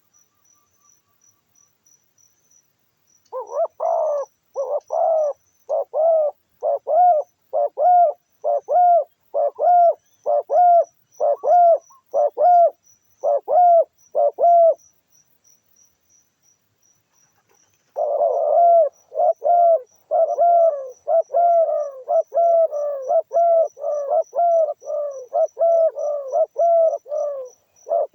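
Doves cooing: long runs of low, evenly repeated coo notes at about two a second, with a pause of a few seconds in the middle. Faint, steady insect chirping runs underneath.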